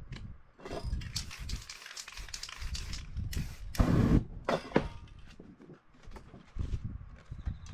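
Aerosol spray paint hissing in short bursts, then a loud whoosh about three and a half seconds in as flames sweep across the freshly painted board, with low knocks from handling in between.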